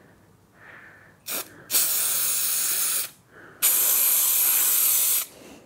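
Aerosol can of spray adhesive spraying: a short puff, then two long, even hisses of about a second and a half each, applied at a few spots.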